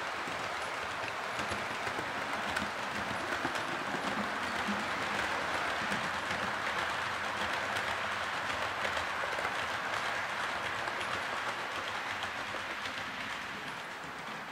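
Model train running along the layout's track: a steady rumble of wheels on rail with many small clicks, louder through the middle and easing off near the end.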